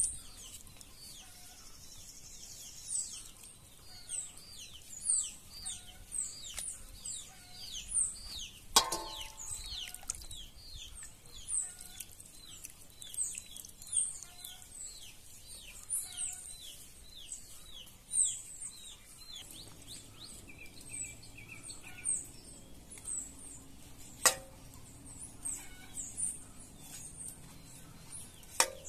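Birds chirping steadily, a quick run of short, high chirps that each slide downward, over a quiet background. A few sharp clicks stand out above the birds, the loudest about a third of the way in and again near the end.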